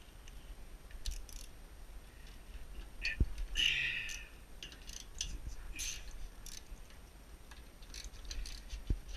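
Hand-tool work on sheet-metal stove parts: scattered metal clicks and scrapes, with a sharp knock about three seconds in followed by a brief squeak, as a motor is unbolted and taken out of a pellet stove.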